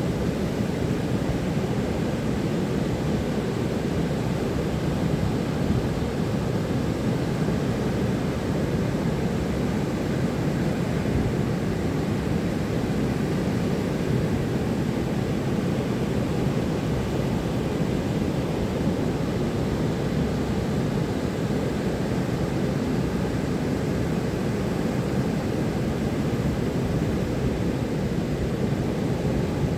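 Ocean surf breaking on a beach: a steady, even rush of low noise with no single crash standing out.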